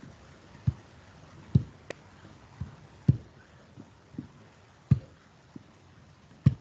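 A series of about ten soft, dull thumps or knocks, irregularly spaced about half a second to a second apart, over faint background hiss.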